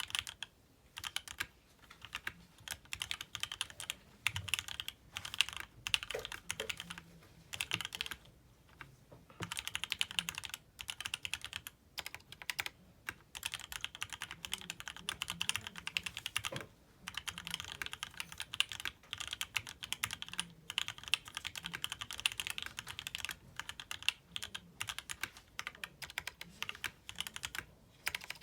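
Typing on a mechanical keyboard with lubed Gateron Ink Black linear switches in an aluminium plate, RAMA SEQ2 keycaps and sound-dampening material: a steady stream of keystrokes in runs, broken by short pauses.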